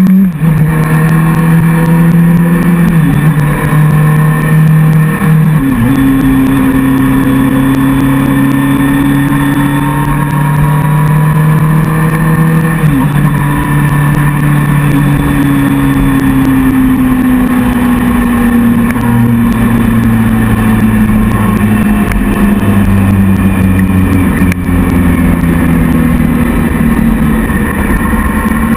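Motorcycle engine heard from a handlebar-mounted camera while riding, with wind rush. The engine note changes abruptly about three seconds in, near six seconds and near thirteen seconds, like gear changes, then falls slowly and steps again later on.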